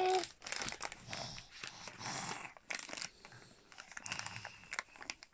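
A baby's cry breaks off just after the start, then irregular crinkling and rustling as the baby squeezes and handles a thin crinkly sheet.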